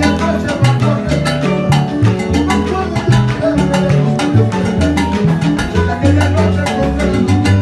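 Cuban timba band playing live: a moving bass line under dense, driving percussion and drum kit, with keyboard and guitar.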